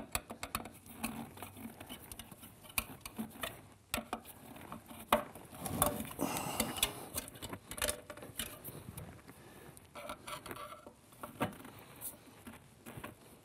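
Scattered light metallic clicks, taps and scrapes of a screwdriver being worked around a tapered snap ring to pry it out of its groove deep in a transmission case, with a longer scrape about six seconds in.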